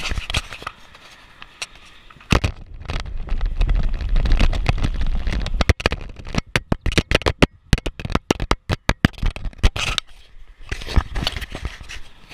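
Wind rumbling on an action camera's microphone, then a fast run of sharp knocks and clicks from the camera being jostled and handled. The knocks come thickest between about halfway and three-quarters through, with a quieter stretch near the end.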